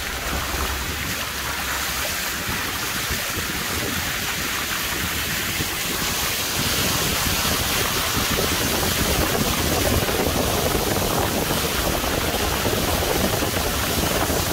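A car's tyres ploughing through floodwater on a street, a steady rushing splash of water thrown up along the side of the car. It grows louder about halfway through as the spray gets heavier.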